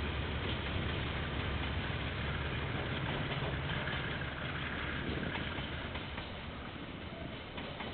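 Diesel locomotive engine running as a train passes, a low rumble that fades gradually over the second half.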